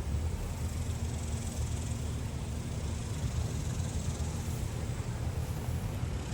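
Outdoor ambience: a steady low rumble with an even high hiss, and no single event standing out.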